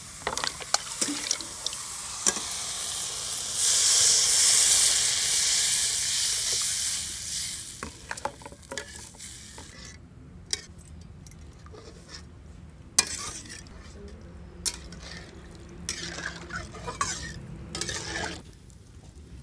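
Curry sizzling in a steel kadai over a wood fire while a metal spatula stirs it, scraping and clicking against the pan. The sizzle swells a few seconds in and dies down about halfway through, leaving mostly the spatula's scrapes and clicks.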